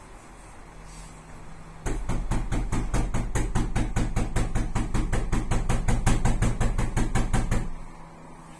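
Rapid, even banging on a wooden door, about six or seven blows a second, each with a heavy low thud. It starts suddenly about two seconds in and stops near the end.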